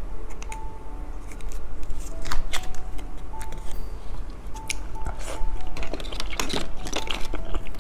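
Soft background music under the crackle and tearing of a plastic snack wrapper being handled and pulled open, heard as a scatter of short sharp clicks and rustles.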